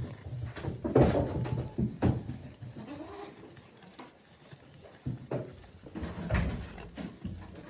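Goats bleating, with a run of irregular sharp knocks and clatters among them.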